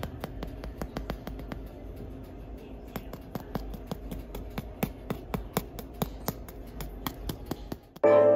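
A spoon clicking and scraping against a mixing bowl while it stirs stiff meringue, several quick irregular clicks a second. Just before the end it cuts suddenly to louder music.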